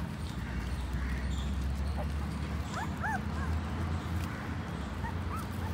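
Young puppies whimpering: a few short, high, rising-and-falling whines about three seconds in and a couple more near the end, over a steady low rumble.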